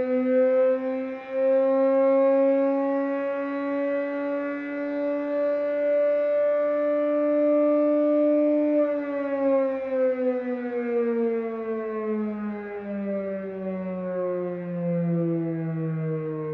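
Fedelcode Model 5 outdoor warning siren sounding its low-tone growl for a curfew siren test. It holds a low, steady wail that edges slightly up in pitch, then about nine seconds in starts winding down, the pitch falling steadily.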